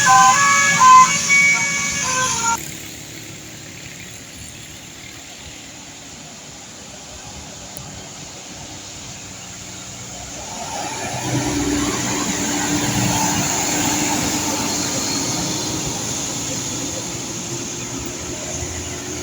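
A bus's telolet horn playing a melody of short stepped notes that stops about two and a half seconds in. Road traffic follows, and from about halfway a large vehicle goes by with a steady droning tone that rises slightly.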